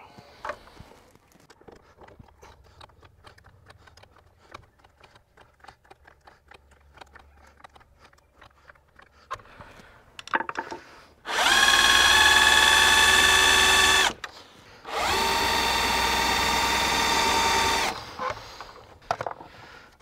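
Electric screwdriver driving a screw into a wooden gate rail in two steady runs of about three seconds each, a second apart, its motor whining at a constant pitch. Before that, faint clicking while the screw is started with a hand screwdriver.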